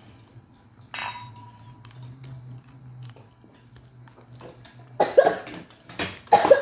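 Tableware clinking once at the dinner table about a second in, with a brief ring, then loud coughing near the end.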